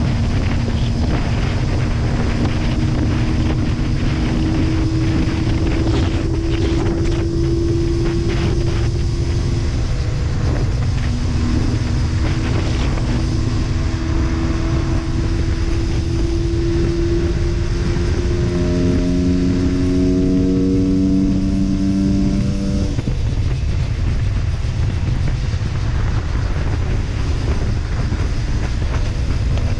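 Husqvarna WRE125 two-stroke single-cylinder engine running under way, its note slowly rising in pitch and breaking off a few times. Heavy wind and road rumble lie over it.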